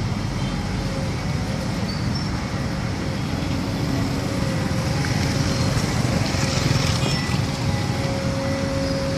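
Steady rumble of vehicles and machinery, swelling slightly about six seconds in.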